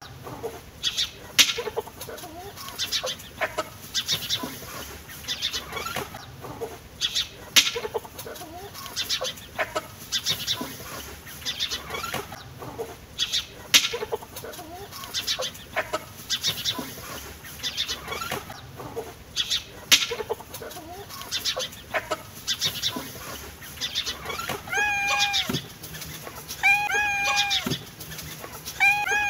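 Animal calls: many short, sharp calls repeat throughout, and near the end three longer pitched calls come about two seconds apart.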